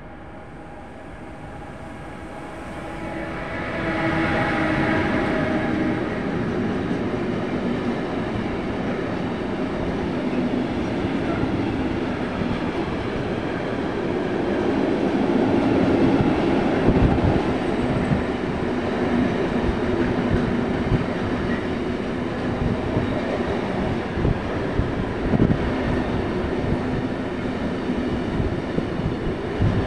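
Long intermodal freight train passing, pocket wagons carrying lorry trailers. It swells over the first few seconds as the locomotive arrives, with a humming tone, then settles into a steady rumble and clatter of wagons with occasional sharp clacks of wheels over rail joints.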